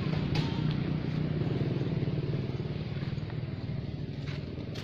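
An engine running steadily, a low hum with a few faint clicks over it.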